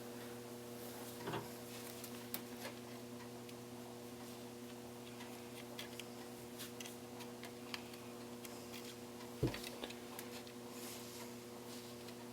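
Scattered small clicks and taps of hands working at a cordless phone handset's plastic shell and circuit board while trying to free the board, with one louder knock about nine and a half seconds in. A steady low electrical hum runs underneath.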